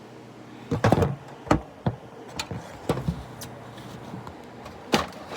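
Plastic knocks and clunks as the casing and front grill of a small window air conditioner are handled and pried at. About half a dozen irregular hits, the loudest about a second in and near the end, over a faint steady low hum.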